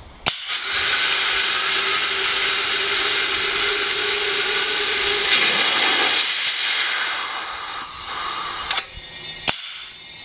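A rocket test stand's main propellant valve snaps open, and a tank pressurized to 400 psi blows its water out through the valve with a loud, steady rushing hiss. The rush falters about six seconds in, surges briefly around eight seconds, and a sharp click near the end marks the valve shutting.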